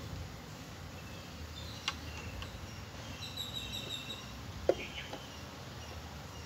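Wooden hive frames knocking against a wooden hive box as they are set in: a light knock about two seconds in and a sharper, louder one a little before five seconds. Runs of short high chirps sound behind them over a low steady background.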